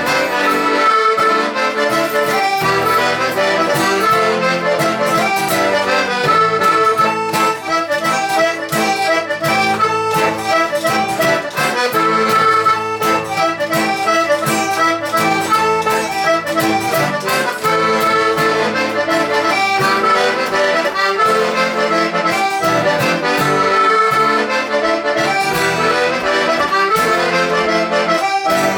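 Traditional Hebridean tune played on accordion with guitar accompaniment, at a steady beat.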